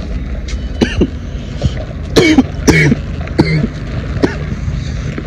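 A man coughing hard, a run of short harsh coughs one after another, from a long hit off a vape held until its light blinks (a "blinker").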